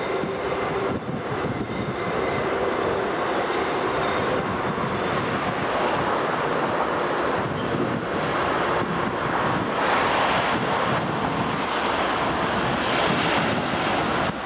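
Jet engine roar from an Air France Airbus A380's four turbofans as the airliner rolls along the runway, a steady rushing noise with wind buffeting the microphone.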